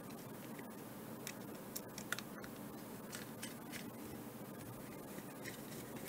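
Faint small clicks and scratches of a thin screwdriver driving a tiny screw into a GPS unit's circuit board, over a steady low hiss.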